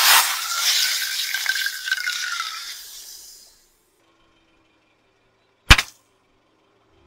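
A crushed aerosol can under a car tyre hissing as its contents spray out, fading away over about three and a half seconds. After a pause, near the end, a single sharp pop as a water-filled rubber hot-water bottle bursts under the tyre.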